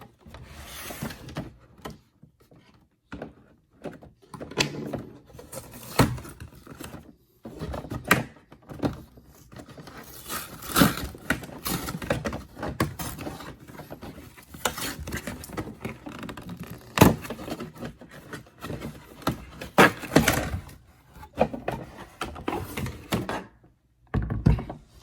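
Packaging of a hole saw kit being handled and opened by hand: irregular scraping and rustling with scattered sharp knocks and clicks.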